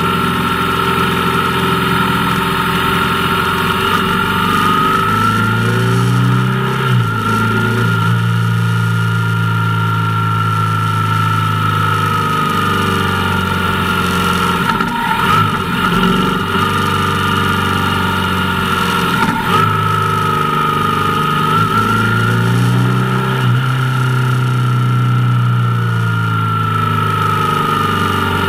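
Motorcycle engine running as the bike is ridden. Its pitch rises and falls with the throttle and steps abruptly several times, as at gear changes.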